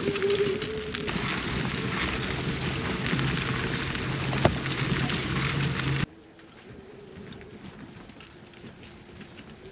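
Electric bike riding over a rough field track: tyres crackling over the ground with a steady motor whine. About six seconds in the sound drops abruptly to a much quieter hiss with a faint steady tone.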